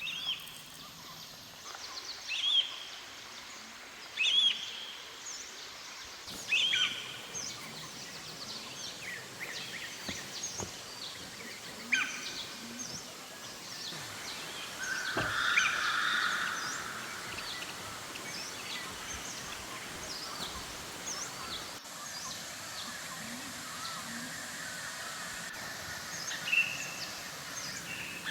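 Forest birds calling: many short chirps and whistles, with one bird repeating the same falling call about every two seconds near the start. Midway a louder buzzing rasp lasts about two seconds, and a faint steady insect hum runs underneath in the second half.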